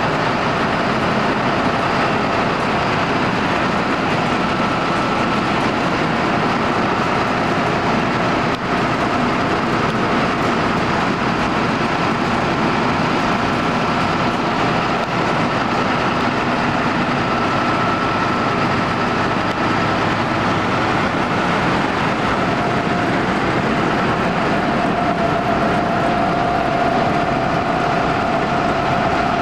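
John Deere 9600 combine harvester running steadily at harvest, a continuous mechanical drone with a faint steady whine.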